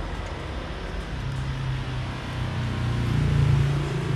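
A motor vehicle engine running, a low hum that grows louder from about a second in and peaks near three and a half seconds before easing slightly.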